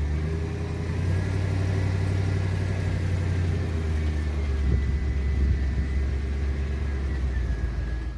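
A vehicle's engine running steadily at low revs, with no change in speed.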